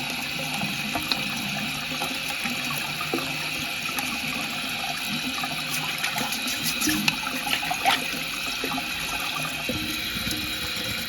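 Water running steadily inside a toilet tank, with a toothbrush scrubbing the tank's inner walls in short scratchy strokes.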